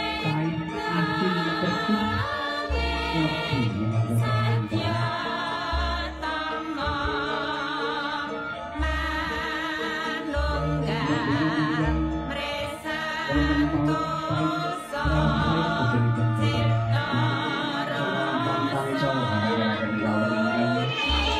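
Music with a singer holding long, wavering notes with wide vibrato, over accompaniment with deep bass notes that come back every second or two.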